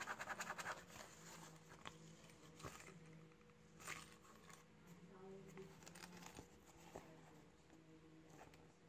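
Faint handling of a zippered microphone pouch. There is a quick run of small clicks in the first second, like zipper teeth, then only scattered light taps and rustles over a low steady hum.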